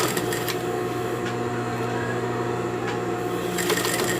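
Domestic sewing machine running steadily, stitching a long basting seam through layers of tulle and organza, with a constant motor hum and a few faint clicks.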